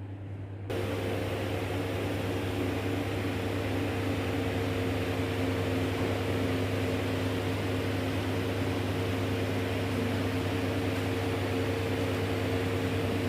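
Electric noodle-making machine running with a steady motor hum; about a second in it gets louder as a whirring with a higher steady hum starts up and carries on evenly.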